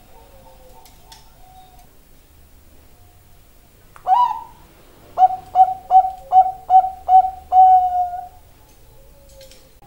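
Zebra dove (Bangkok-type perkutut) cooing: one rising note about four seconds in, then a quick run of six short coos ending in a longer held one.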